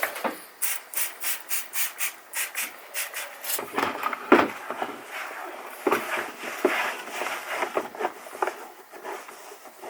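Interior plastic trim pieces being scrubbed with interior shampoo to lift leftover glue residue. Quick, even rubbing strokes come at about four a second for the first few seconds, then slower, uneven scrubbing.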